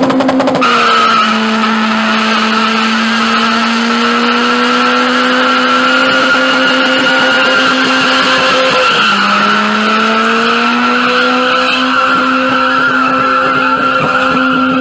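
Car engine held at high revs with the tyres spinning and squealing in sustained wheelspin. About nine seconds in the revs drop briefly, then climb back up.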